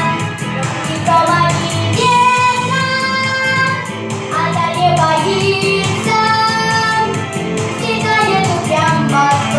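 A girl singing a song in long held notes over a backing track with a steady beat.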